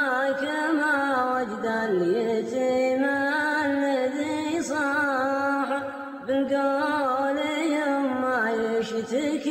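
Background music: a single voice singing a slow, chant-like melody of long held notes with winding ornaments.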